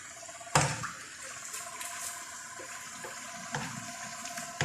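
Sauce sizzling in a hot pan with a steady hiss while it is stirred. A utensil clinks sharply against the pan about half a second in, and more lightly later.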